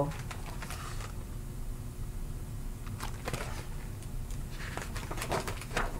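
A picture book's page being turned and the book handled: a few soft rustles and taps over a steady low room hum.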